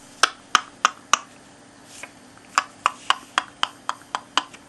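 A series of sharp clicks: four about a third of a second apart, then after a pause about nine more at roughly four a second, growing fainter.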